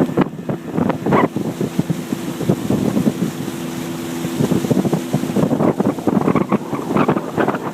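Wind buffeting the microphone over a steady motorboat engine hum; the hum fades about five seconds in, while the gusty rumble grows stronger toward the end.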